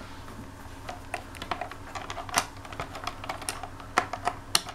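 Irregular light clicks and taps of multimeter test probes and their leads knocking against components and the plastic casing of an electric shower's circuit board while the probes are worked into place, with a few sharper clicks near the end.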